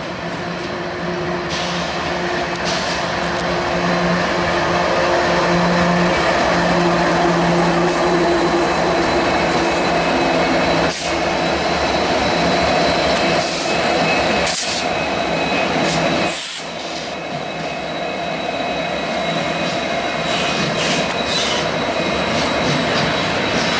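Union Pacific diesel freight locomotives passing close by with their engines running, a steady low drone over the rumble of wheels on rail, as the locomotives and the double-stack container cars behind them roll past.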